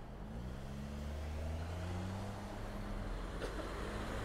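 Engine of a nearby motor vehicle in city traffic pulling away, its pitch rising in the first second and then holding steady as it grows louder.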